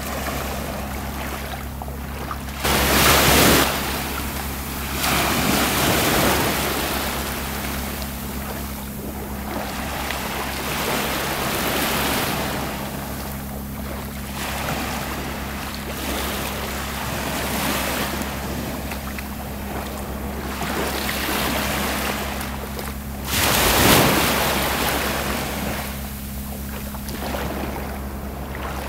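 Gentle Mediterranean surf: small waves breaking and washing up the beach in repeated swells, with two louder breaks, one about three seconds in and one near the end. A steady low hum runs underneath.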